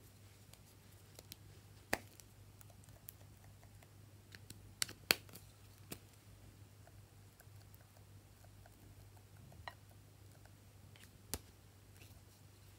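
Scattered light clicks and taps from small plastic and silicone toy pieces being handled and fitted together: about six sharp clicks, the loudest a quick pair about five seconds in, over a faint steady low hum.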